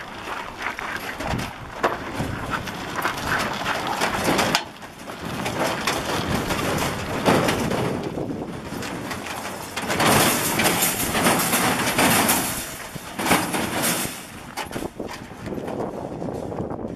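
Small metal utility trailer with a wire cage on it being pushed by hand over dirt and gravel: wheels rumbling and the trailer and cage rattling, with many sharp clicks and knocks.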